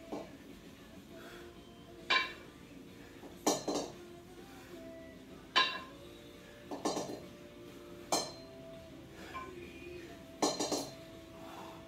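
Two 8 kg kettlebells clinking against each other during double half snatches: sharp metallic clinks every second or two, some coming in quick pairs, each with a brief ring.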